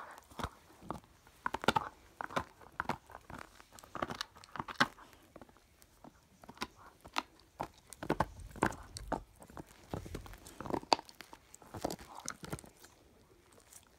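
Siberian husky gnawing a chew bone: irregular crunches and clicks of teeth on the bone, with short pauses about six seconds in and near the end.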